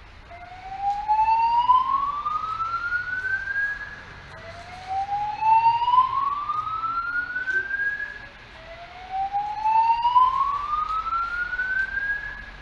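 Fire alarm voice-evacuation speakers (System Sensor SpectrAlert Advance) sounding the slow-whoop evacuation tone: three rising sweeps, each climbing steadily for about four seconds before starting again low. The tone signals a building evacuation and alternates with the recorded emergency announcement.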